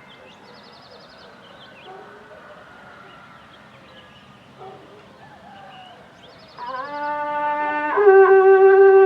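Toxácatl horn being blown: after some seconds of quiet, a lower note sounds about six and a half seconds in, then steps up about a second later to a loud, steady held note.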